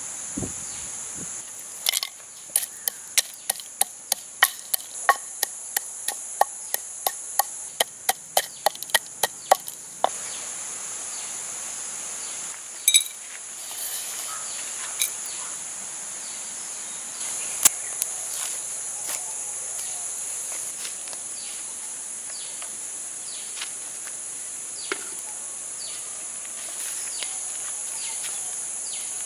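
Wooden pestle pounding whole spices such as cinnamon bark in a wooden mortar, sharp wooden knocks about two to three a second from about two seconds in, stopping about ten seconds in, with a couple of single knocks later. A steady high chirring of insects runs underneath.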